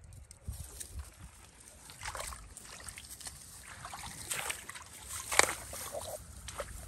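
Shallow muddy water sloshing and splashing in short, irregular strokes, with one sharper splash about five and a half seconds in.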